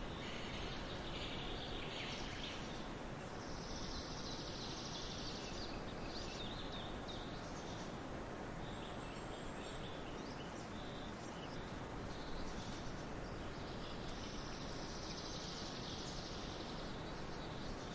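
Forest ambience: a steady noisy background with scattered bird chirps and stretches of high-pitched insect trilling, about four seconds in and again near the end.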